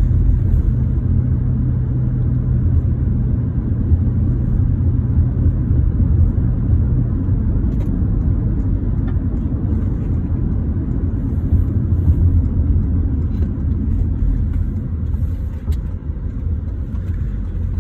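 Steady low rumble of a car driving, heard from inside the cabin: engine and tyre noise on the road, dipping briefly near the end.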